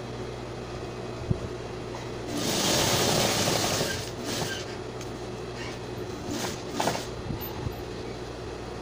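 Sewing machine stitching in short runs: one longer run of about a second and a half starting about two seconds in, then brief bursts of stitching a couple of times later, over a steady low motor hum.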